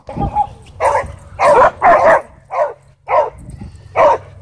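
Dog barking repeatedly: about six short barks, roughly half a second apart.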